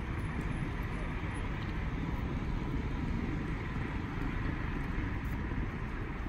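Steady street ambience: a low traffic rumble with indistinct voices from a crowd of onlookers.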